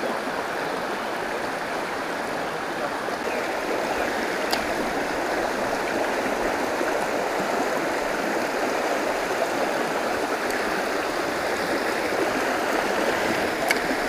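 A shallow, rocky stream rushing over stones in white-water riffles, a steady rush of water that grows a little louder over the first few seconds.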